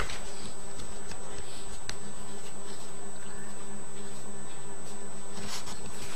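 Steady electrical hum and hiss with a faint buzz, with a few faint clicks and a brief rustle near the end.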